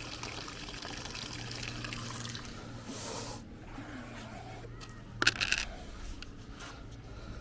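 Water running into the drum of a compact washing machine as it fills, over a steady low hum; the rushing eases about three and a half seconds in, and a short clatter comes about five seconds in.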